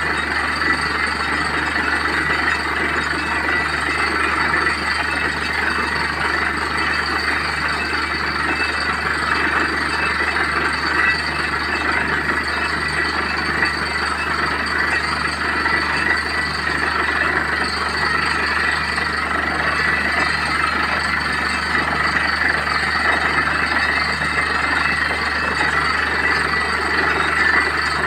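Borewell drilling rig running steadily, its engine and compressor droning as water and air gush out of the bore around the drill rod.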